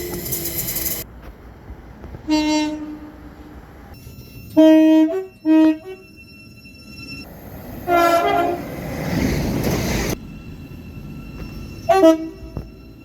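A run of short train horn blasts from spliced clips: one blast about two seconds in, two quick blasts around five seconds, a longer blast near eight seconds over the rushing noise of a passing train, and a brief double blast near the end.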